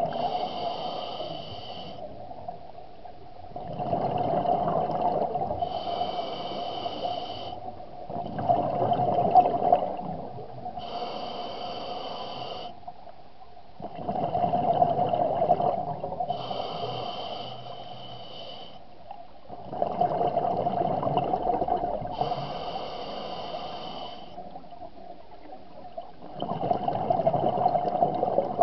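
Scuba diver breathing through an open-circuit regulator underwater, about five breaths. Each is a long bubbling exhalation followed by a shorter hissing inhalation with a faint high whine.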